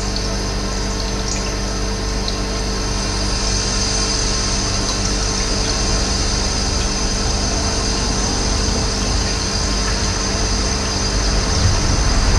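Running water flowing steadily, with a low rumble building near the end.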